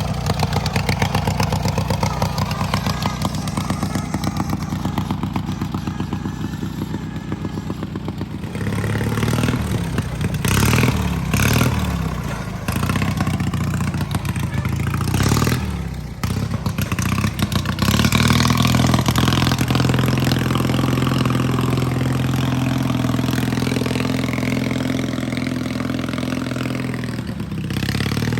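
Mudding lawnmower's small engine running steadily, then revved up and down several times, with a few sharp loud spikes, before being held at a steady higher speed.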